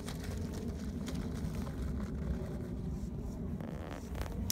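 A Lego Technic RC car driving over dirt and gravel: a steady low whir from its electric motors and gearing, with a few faint clicks.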